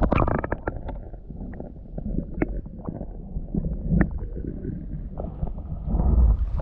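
Muffled sloshing and gurgling of seawater around a camera held underwater, with scattered clicks and knocks and a louder low surge near the end.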